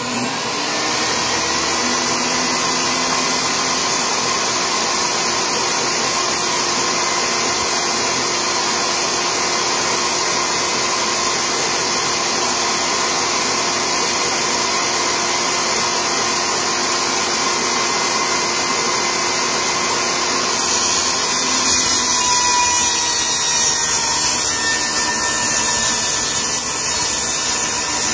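Portable table saw starting and spinning up to speed, then running steadily. From about 20 seconds in the sound thickens and the pitch dips slightly as a cedar strip is fed into the blade for a rip cut.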